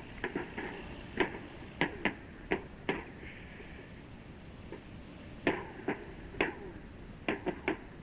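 Burning ammunition dump exploding and cooking off: a string of irregular sharp cracks and pops, about fifteen in eight seconds, over a steady hiss.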